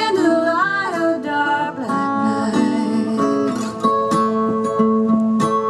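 Acoustic guitar music with a voice sliding up and down in pitch in the first second, played through the NAD 3130 stereo amplifier while its bass and treble tone controls are turned.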